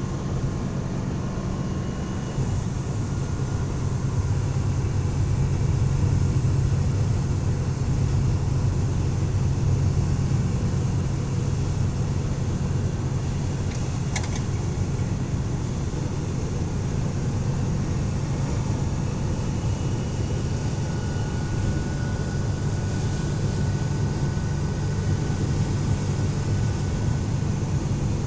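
1984 Dodge van's engine running under way, a steady drone with road noise that grows louder from about four seconds in, as the owner checks for a suspected misfire under wide-open throttle. A brief click about halfway through.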